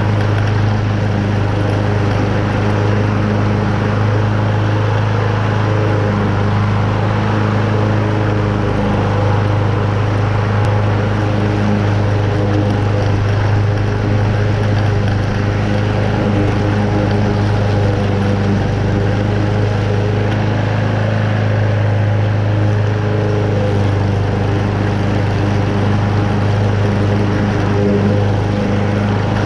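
Toro Super Recycler walk-behind lawn mower with a Honda engine running steadily under load, its blade cutting moderately wet, tall grass. A steady hum that does not change.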